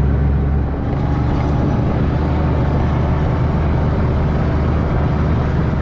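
Motor vehicle driving, a steady low engine drone with road and wind noise.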